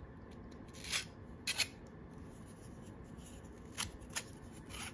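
3D-printed plastic parts scraping and clicking against each other as a printed rocket flame piece is pushed through a printed rocket body: about five brief, faint scrapes, the loudest one and a half seconds in.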